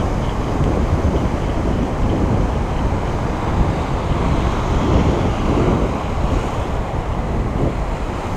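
Gulf surf washing and breaking below, with wind buffeting the microphone in a steady low rumble.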